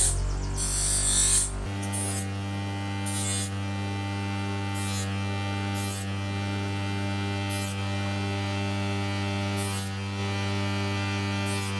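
A steady low electrical hum with short hissing bursts every second or two.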